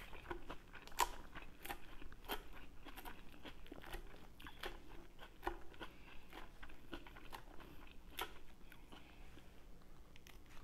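Close-miked eating sounds: irregular crisp crunches and clicks from chewing salad greens, mixed with a wooden fork tossing the salad in a plastic bowl. A forkful goes into the mouth near the end.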